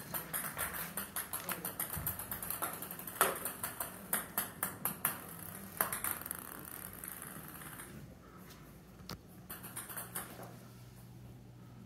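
Ping-pong balls bouncing and clicking on a tile floor as cats bat at them: a rapid run of light clicks, a few sharper than the rest, thinning out after about eight seconds.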